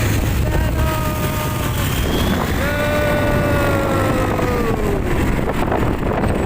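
Motorcycle riding along the road: a steady low rumble with wind buffeting the microphone, and an engine whine that sinks slowly in pitch, stops, and returns twice.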